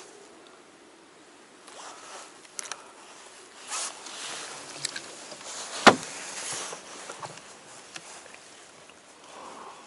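An angler handling tackle in a small boat: scattered rustling and light clicks, with one sharp knock about six seconds in.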